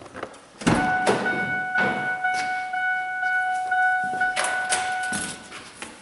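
The latch of a Ford F-150's driver door clicks open about two-thirds of a second in, and the truck's electronic warning chime then sounds as one steady tone for about five seconds before it stops. Handling knocks and clunks from the open door and cab come over it.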